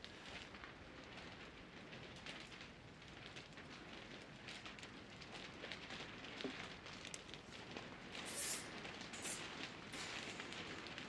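Faint gritty scraping and pattering of dry, clumpy soil being worked by gloved hands, with a couple of louder scrapes near the end.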